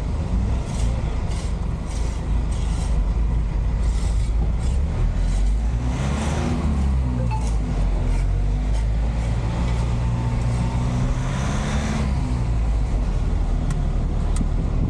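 A truck engine heard from inside the cab, pulling through slow city traffic and revving up twice as it accelerates. A turn signal ticks about twice a second over it.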